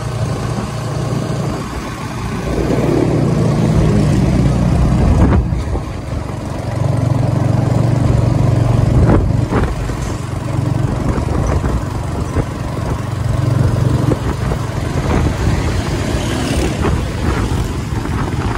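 Motorcycle engine of a tricycle (motorcycle with sidecar), heard from the sidecar while riding: it climbs in pitch as it accelerates a couple of seconds in, then revs up and eases off several times with the road noise, with a couple of sharp knocks along the way.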